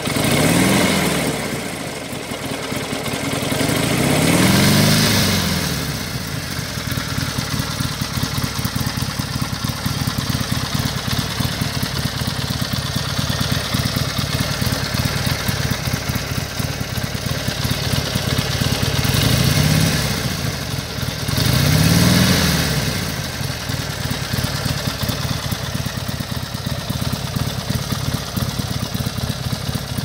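2020 Harley-Davidson Sportster 1200 Custom's air-cooled Evolution V-twin idling through its stock exhaust, with four short revs that rise and fall: two in the first six seconds and two more around twenty seconds in.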